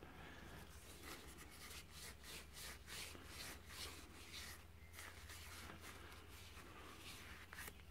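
Faint rubbing of a cloth rag wiping the inside of a Yamaha TDR250 two-stroke cylinder barrel, in quick repeated strokes.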